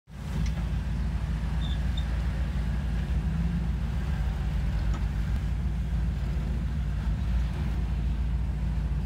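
Jeep CJ7's engine running low and steady as the Jeep crawls up a steep rock slope.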